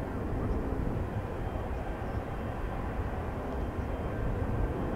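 Jet airliner engines running at taxi power, heard at a distance as a steady low noise with a faint whine.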